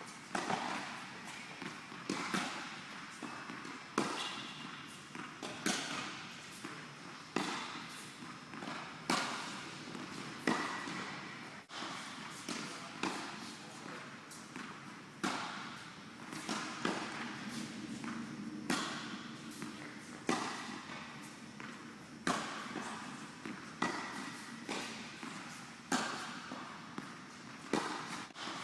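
Tennis ball hit back and forth in a rally: sharp racket strikes about every one and a half to two seconds, with lighter knocks between them.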